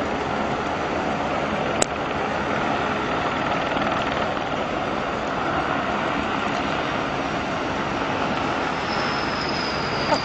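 Steady rush of jet engine noise from a Boeing 787 running at low power, with a faint high whine that slides down in pitch near the end. A single sharp click about two seconds in.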